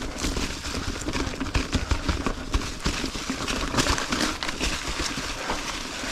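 Ibis Ripmo mountain bike rolling slowly over trail rock: tyres crunching, with irregular knocks and clatter from the bike as it drops over the rocks.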